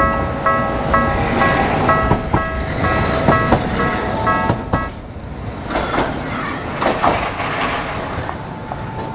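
Japanese level-crossing warning bell ringing its electronic clang about twice a second, then stopping about five seconds in. After that a Setagaya Line train runs through, its wheels clicking in pairs over the rail joints.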